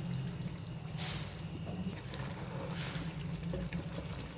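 Potato and aubergine sabzi simmering in a pot over a gas flame: soft bubbling and hissing over a steady low hum, with gentle swells about a second and three seconds in.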